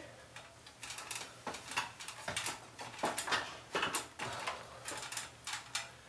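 Irregular light clicks and taps of plastic being handled: a smoke alarm and its mounting plate picked up and turned in the hands.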